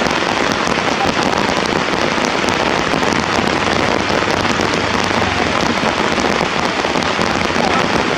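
Steady rain falling, an even, dense hiss that does not let up.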